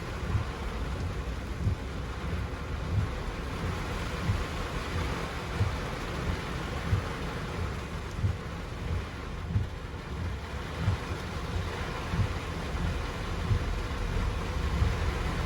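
Heavy rain pouring steadily, with irregular low thumps and rumbles underneath, about one a second.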